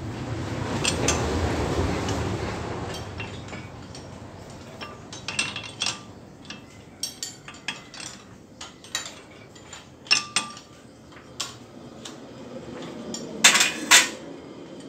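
A four-jaw lathe chuck being tightened with a T-handle chuck key to clamp a brake rotor: a rough rumble over the first two seconds, then scattered metallic clicks and clinks of the key working the jaw screws. Two loud metal knocks come close together near the end.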